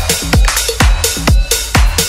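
Electronic dance music with a steady kick drum beating about twice a second, hi-hats and synth notes over it.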